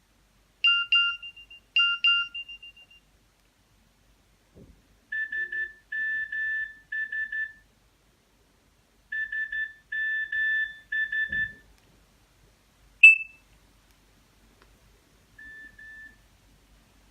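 Nokia 2760 message alert tones played one after another through the phone's speaker. First come two ringing chimes that fade out, then two runs of short electronic beeps, then a single sharp blip, and a faint short beep pattern near the end. Faint clicks fall between some of the tones.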